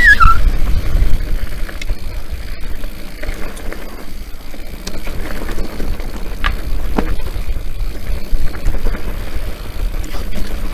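Wind buffeting the camera microphone as a rumble, over tyre noise and scattered clicks and rattles from an Orbea Rallon enduro mountain bike riding down a rough singletrack.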